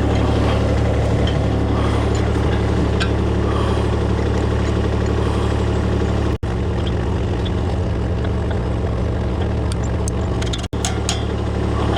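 Engine of a truck or lifting machine idling steadily, cut off for an instant twice, about six and ten seconds in.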